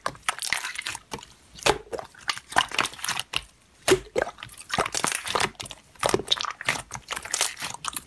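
Clear slime being stretched and pressed by hand, giving irregular wet clicks and small crackling pops.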